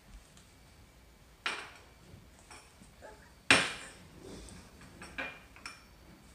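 A glass bowl is set down on a stone countertop with sharp knocks, the loudest about three and a half seconds in. A few light clinks of a metal spoon against the glass follow near the end.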